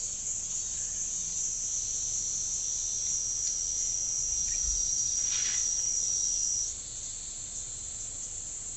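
Cicadas buzzing in a steady, high-pitched chorus; the loudest, most even tone in it cuts off about two-thirds of the way through.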